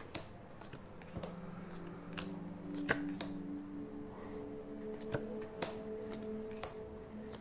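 Trading cards being leafed through by hand one at a time, giving light irregular clicks and snaps as card slides off card. A faint steady hum starts about a second in.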